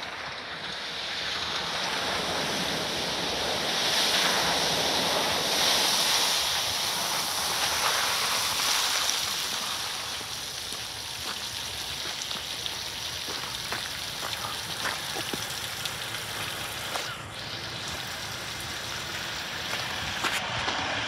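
Jeep Wrangler's tyres hissing and splashing through puddle water and over wet gravel, a steady rushing that swells to its loudest about four to nine seconds in as the Jeep comes close, then eases to a lower rolling hiss with small gravel clicks. Wind buffets the microphone.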